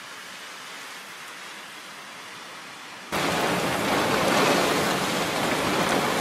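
A faint steady hiss, then about three seconds in a sudden cut to a much louder, dense, steady downpour of heavy rain.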